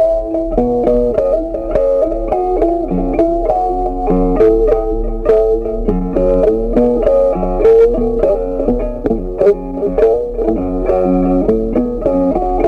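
Background music: a plucked-string melody over lower bass notes, with a steady rhythm.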